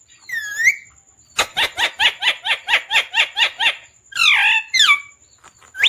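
Pet parrot calling: a short call, then a fast run of about a dozen clipped, repeated notes at about five a second, then two more sliding calls.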